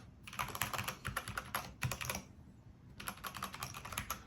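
Typing on a Cherry MX 8.2 mechanical keyboard fitted with classic Cherry MX Brown switches: fast runs of keystrokes, with a brief pause about two seconds in.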